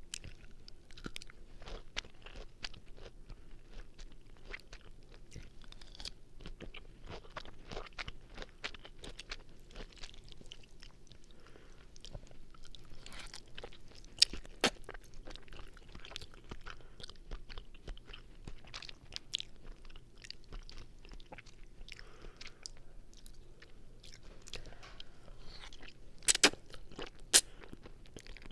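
Linguine carbonara being chewed right at the mouth, with many small wet mouth clicks and smacks. There are a few louder sharp clicks, two about halfway through and two near the end.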